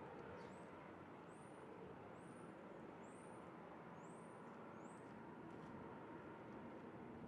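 Faint, steady outdoor background rumble, with a short high chirp repeated six times, about once a second.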